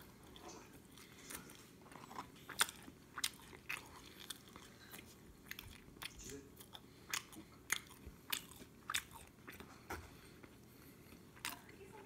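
A person chewing food close to the microphone, with irregular sharp mouth clicks and crunches about once or twice a second.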